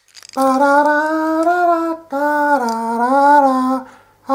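A single voice singing long held notes in two phrases of about a second and a half each, the pitch gently rising and falling, with a third note starting right at the end.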